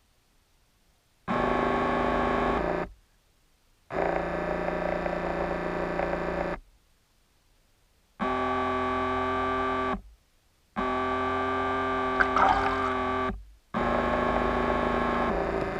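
Electric motors of a remote-controlled bait boat heard underwater, a steady buzzing whine running in five bursts of one to three seconds, each starting suddenly and dying away, with near silence between.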